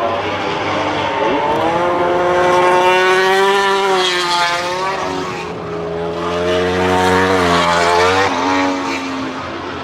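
Racing motorcycle engines at high revs: the engine note climbs about a second in, holds, falls away, then climbs and falls again in a second swell near the end.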